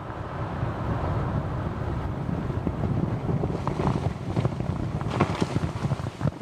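Rolling rumble swelling after a nearby explosion, then from about three and a half seconds in a rapid scatter of sharp clatters: stones thrown out by the blast landing on the ground.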